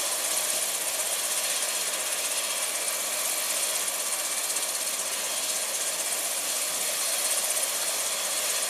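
Medical helicopter running on the ground with its rotors turning, a steady engine and rotor noise while it waits to take off.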